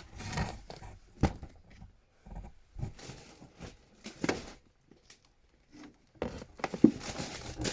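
Handling noise as items are taken out of a box: scattered short rustles and a few sharp clicks, busiest near the end.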